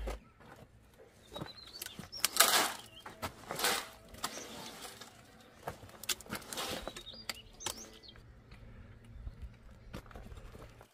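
Several short scraping rushes and light knocks, the loudest about two and a half seconds in, with a few faint bird chirps.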